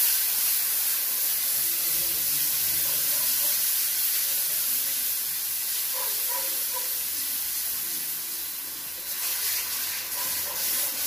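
Hot sugar syrup hitting wheat flour roasted in ghee, sizzling and hissing with steam as it is stirred in. The hiss eases a little about eight seconds in and picks up again near the end as more syrup goes in.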